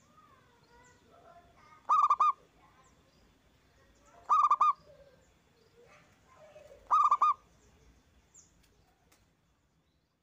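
Zebra dove (perkutut) cooing: three loud calls about two and a half seconds apart, each a short burst of quick rolling notes. Fainter calls of other birds come between them.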